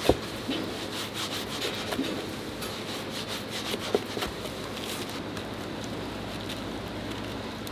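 Kitchen knife sawing through a gimbap roll, with a crackling of the seaweed wrap and a sharp knock of the blade on the cutting board near the start and again about four seconds in. After about five seconds only a steady low background hum remains.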